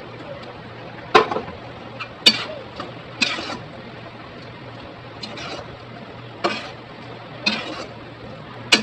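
A metal spoon scraping and clinking against cookware in short strokes, roughly once a second, as ground coconut paste is scraped in and stirred into the simmering okra tamarind curry. A faint steady hum runs underneath.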